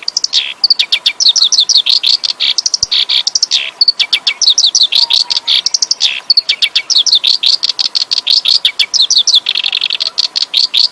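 A kerak basi, an Acrocephalus reed warbler, singing loudly. Its song is a fast, almost unbroken stream of sharp chattering and whistled notes, with a few short breaks.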